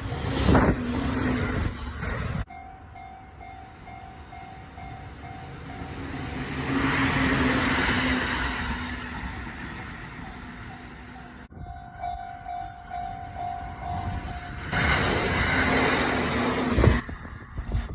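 Japanese railway level-crossing bell ringing its repeating 'kan-kan' tone, then an electric train running past with a swelling rush of wheel and rail noise. This happens twice, with an abrupt cut before each bell.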